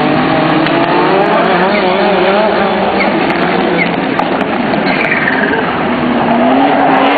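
Rallycross cars racing, more than one engine at a time revving up and dropping back through gear changes.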